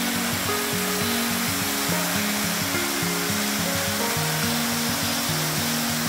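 Steady rush of a tall, thin waterfall falling into a limestone sinkhole, with background music playing a simple melody of held notes over it.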